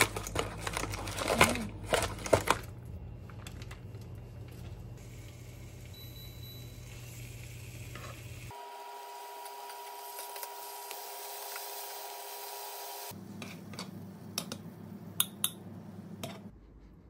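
Plastic packaging crinkling and clicking as vacuum-packed meat is pulled from its tray, then meat patties sizzling in a nonstick frying pan, with a steady hum for a few seconds in the middle. Metal tongs click and scrape against the pan near the end.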